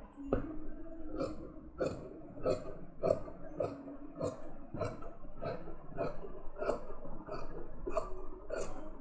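Large tailor's shears cutting through fabric, the blades closing in a steady rhythm of about one and a half snips a second.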